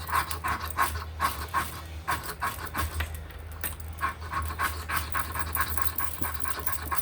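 Small ferro rod scraped hard with the filed-down edge of a Victorinox Swiss Army knife's file used as a striker: quick repeated strokes, about four a second, in three runs with short pauses between them.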